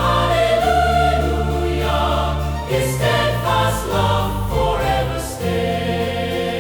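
Choir singing a hymn over an orchestra, with held chords and the bass moving every second or so.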